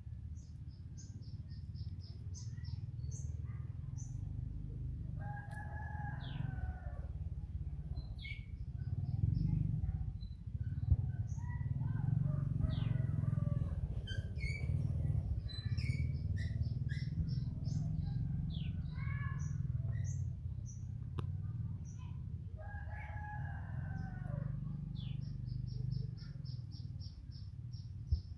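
A rooster crows twice, once about five seconds in and again about twenty-three seconds in, each crow about a second and a half long. Small birds chirp in quick high trills throughout, over a steady low rumble.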